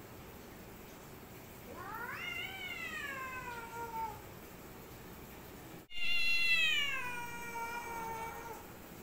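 A domestic cat yowling during a standoff with another cat: two long drawn-out calls, the first rising then falling, the second louder, starting high and sliding down.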